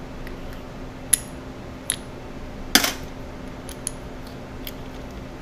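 Small steel parts of a 7.3 Powerstroke HEUI injector clicking and clinking against each other as they are handled and fitted together, a few separate sharp clicks with the loudest about three seconds in. A faint steady hum runs underneath.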